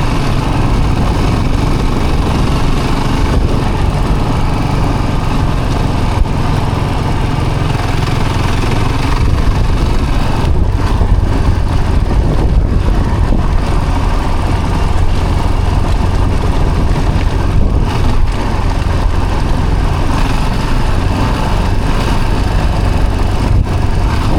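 Vehicle engine running steadily under way, a constant low hum with a continuous rush of road and wind noise.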